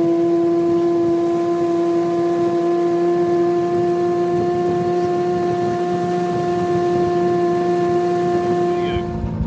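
1997 Johnson 6 HP two-stroke outboard motor running steadily at speed, a loud, even drone with a strong steady pitch. It cuts off abruptly near the end.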